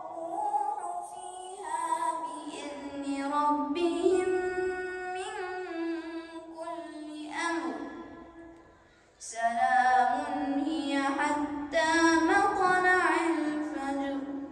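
A single voice chanting Quran recitation in a slow, melodic style, holding long ornamented notes, with a short breath pause about eight seconds in before the chant resumes.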